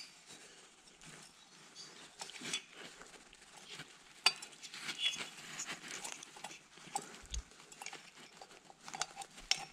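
Faint, scattered clicks, light metal taps and rustling of hands working a pit bike's cylinder barrel down over the piston and rings, with a slightly sharper click about four seconds in.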